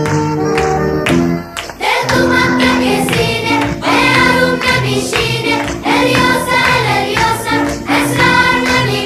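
Background music: an instrumental passage that gives way, about two seconds in, to a song with a choir of voices singing over a beat.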